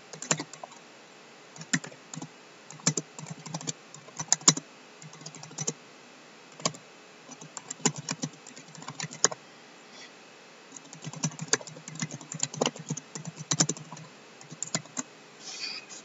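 Typing on a computer keyboard: quick runs of keystrokes in uneven bursts, with short pauses between them.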